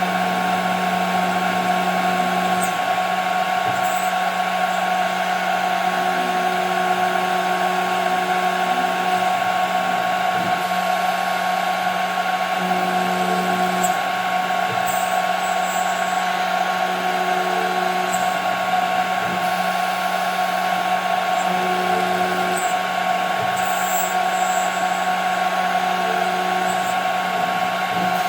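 CNC router spindle whining steadily as it cuts 5 mm plexiglass, with a lower machine hum that comes and goes every few seconds as the machine moves.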